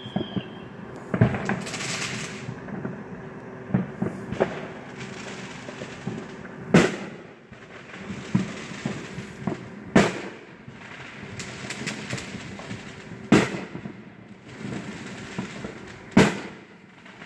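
Many fireworks going off all around: five loud booming reports about three seconds apart, with many smaller pops and crackling between them.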